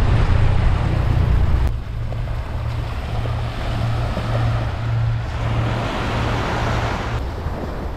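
Sea waves washing against the shore, a steady hiss that swells and eases, with wind rumbling on the microphone.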